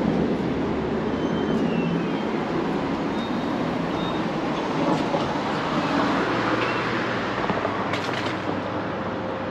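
Steady rumble of a busy street beside a subway construction site: road traffic and machinery noise with no clear rhythm. A few brief clicks come about eight seconds in.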